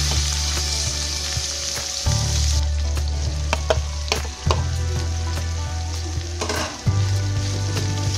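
Stir-frying in a wok: oil sizzling around garlic, chicken and green beans while a spatula scrapes and knocks against the pan. The sizzle is loudest for the first two seconds or so, then quieter under the scattered knocks.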